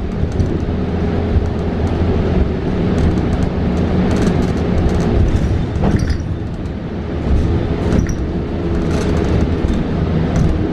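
Interior of a New Flyer XE40 battery-electric bus in motion: steady road and tyre rumble with scattered rattles and clicks, and a faint steady hum.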